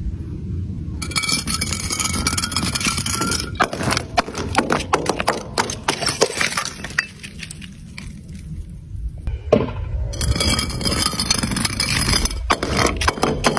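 Glass bottles packed with small coloured beads tumbling down concrete steps and shattering, followed by a rapid clatter of glass and beads scattering and bouncing over the concrete. There are two such bouts, one about four seconds in and the other from about ten seconds in.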